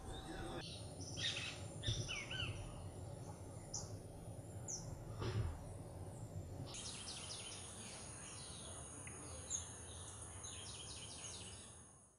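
Tropical countryside ambience: birds chirping and calling in short runs over a steady high insect whine, busier in the second half and fading out at the end.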